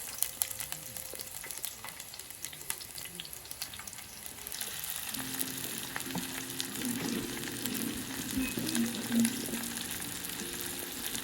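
Food frying in a pan: a steady sizzle with scattered crackles and light clicks of a utensil stirring.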